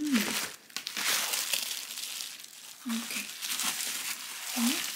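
Plastic bubble wrap crinkling and rustling in irregular bursts as a wrapped package is handled and unwrapped. A few brief voice sounds are heard.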